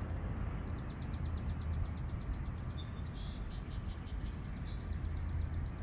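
A songbird's rapid, even trill of high notes, sung in runs of about two seconds with short pauses between, with a few other brief bird chirps about three seconds in. A steady low rumble lies underneath.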